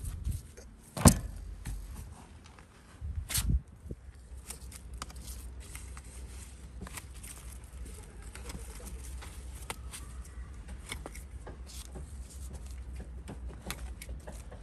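Hand pruning shears snipping and eggplant leaves rustling as leaves are cut back from the plants, a run of small clicks and rustles. Two loud knocks come about a second in and about three and a half seconds in.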